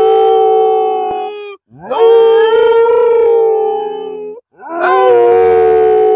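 A man and a dog howling together, the dog joining in with the man's howl. There are long, steady howls with short breaks between them: one ends about a second and a half in, a second is held for about two and a half seconds, and a third starts near the end.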